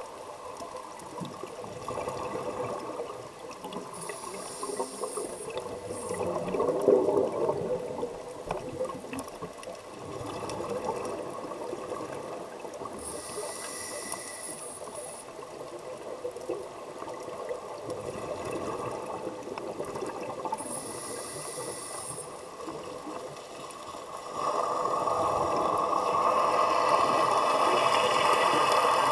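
Underwater sound heard through a camera housing: a steady muffled water noise, with a scuba regulator's hiss coming back about every eight seconds as the diver breathes in. Near the end the noise steps up to a louder, even rushing.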